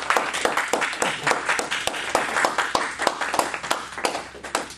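A small audience applauding, many hands clapping irregularly, dying away near the end.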